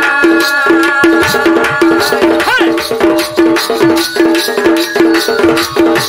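Sambalpuri danda nacha folk music. A pitched percussion pattern repeats steadily at about two to three strokes a second under held melodic notes. There is a brief rising-and-falling glide about two and a half seconds in.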